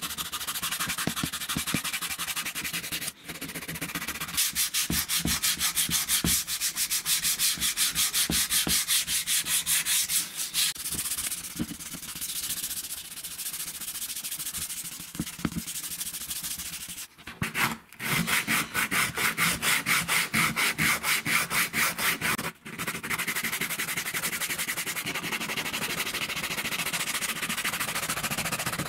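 Hand sanding with sandpaper on an old hammer drill's painted, rusty housing: quick, even back-and-forth rasping strokes with a few short breaks.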